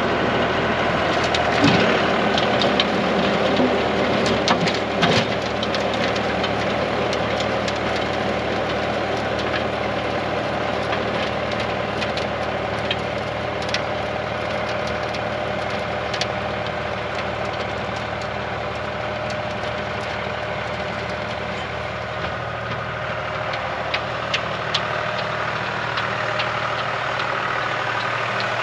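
John Deere 5055D tractor's three-cylinder diesel engine running steadily, driving a six-foot heavy-duty rotary tiller. Scattered sharp clicks and knocks cut through, most of them in the first few seconds.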